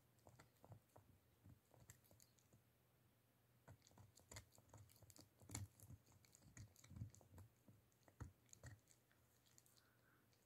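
Shih Tzu gnawing on a hard dehydrated-cheese dog chew: faint, irregular clicks of teeth on the chew, busiest in the middle.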